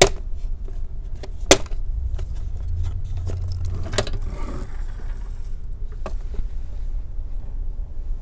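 Sharp plastic clicks and snaps from a laptop keyboard being pried loose from its case, the two loudest near the start and about a second and a half in, with lighter ones later, over a steady low hum.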